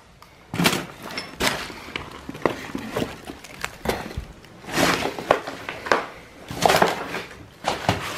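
Footsteps crunching and scraping through rubble and litter on the floor of a derelict room, with irregular knocks and clatters of debris underfoot.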